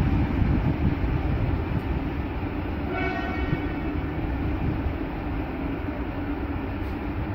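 Electric locomotive running away along the station track with a steady low rumble. A short horn blast sounds about three seconds in.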